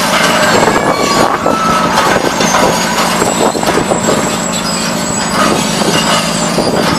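Scrap metal shredder running under load, tearing scrap with constant metallic grinding, clatter and high squeals over the steady hum of its drive.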